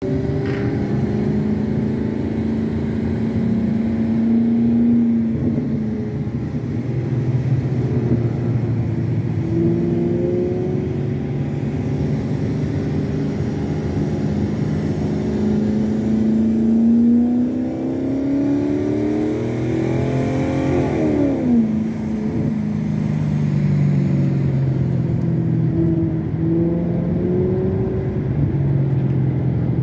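Car engine heard from inside the cabin while driving, its note rising and falling through the gears, with a quick drop and rise in pitch about two-thirds of the way through. Road and wind noise run underneath.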